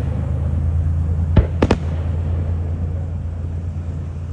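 Aerial fireworks bursting: two sharp bangs about a second and a half in, a fraction of a second apart, over a steady low rumble.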